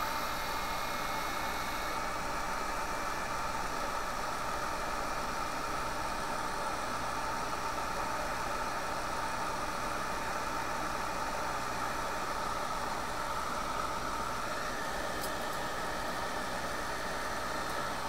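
Hot-air rework station blowing a steady airy hiss, unchanging throughout, while heating the solder joints of an HDMI port to desolder it from the board. A faint low hum sits underneath.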